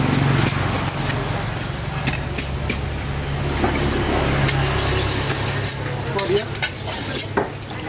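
Water swishing and splashing in a basin as a fish knife is rinsed, over a steady low hum, with a few sharp knocks near the end.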